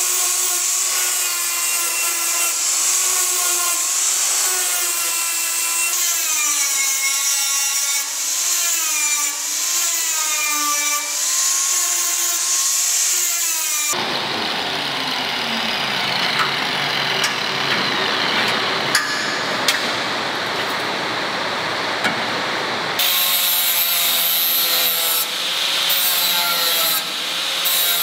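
Handheld angle grinder grinding the edge of a steel saw blade, its whine wavering in pitch as the load on the disc changes. About halfway through, the whine gives way to a rougher, noisier grinding for several seconds, then returns.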